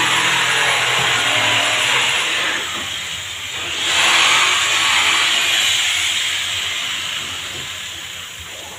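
A handheld tool running against a speedboat's hull in two long spells, a loud hiss with a thin high whine that rises as each spell starts and drops as it ends, the second one fading away.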